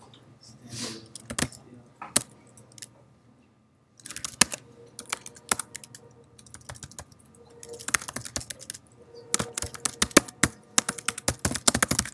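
Typing on a computer keyboard: a few scattered keystrokes, a short pause, then quick runs of keystrokes from about four seconds in, fastest and densest near the end.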